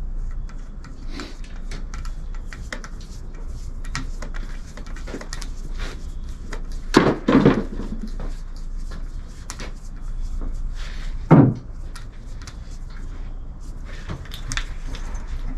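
Handling noise: a run of small clicks and knocks, with two louder, duller thuds about seven and eleven seconds in.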